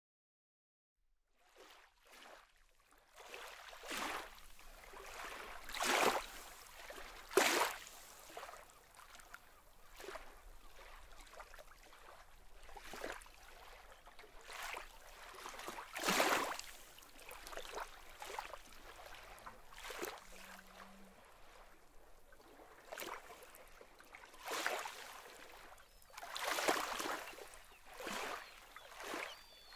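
Small waves lapping and splashing against shore rocks and pebbles, in irregular swells every second or two, starting after a second or so of silence.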